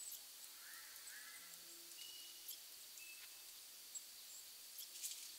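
Faint forest ambience: a soft, steady hiss with a few quiet, brief bird chirps, a pair of curved chirps about a second in and some short high peeps later.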